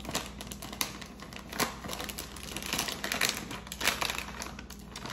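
A plastic bag of glazed pecans crinkling as it is emptied, with irregular clicks of the nuts dropping into a measuring glass.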